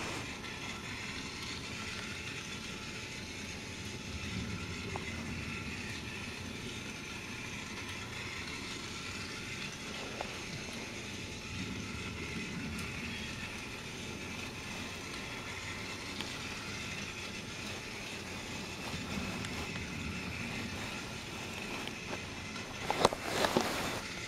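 Battery-powered TrackMaster toy train engine running along plastic track: the motor and gears give a steady whirring hum. A short, louder rattling clatter comes about a second before the end.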